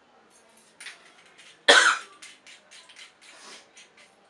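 A man coughing on e-cigarette vapour: one loud, hard cough about a second and a half in, then a run of shorter, quieter coughs and breaths.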